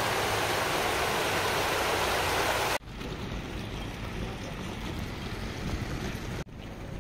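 Water rushing down a stepped concrete cascade, a loud steady rush that stops suddenly a little under three seconds in, followed by a fainter steady hiss.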